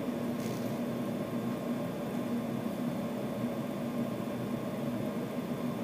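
Steady low hum with a constant hiss from running electronics-bench equipment; the soldering work itself makes no sound.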